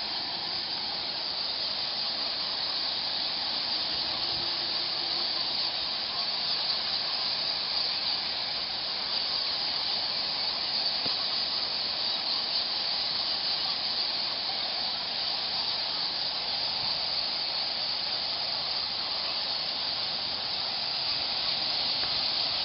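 Massed chatter of a huge roosting colony of Geoffroy's rousette fruit bats in a cave: a steady, dense, high hiss of overlapping calls.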